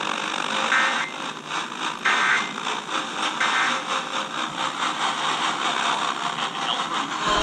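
Weather radio static: a steady hiss with crackling, the sound of a weak NOAA Weather Radio signal on the receiver.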